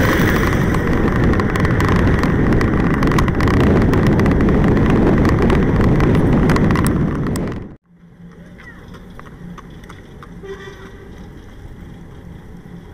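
Loud wind rushing over the microphone of a bike-mounted camera at road speed, mixed with tyre and road noise, cutting off abruptly about eight seconds in. After the cut, much quieter road and traffic noise with a faint low hum.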